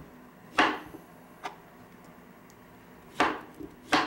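Kitchen knife chopping papaya on a plastic cutting board: sharp knocks of the blade striking the board about half a second, three seconds and four seconds in, with a lighter tap in between.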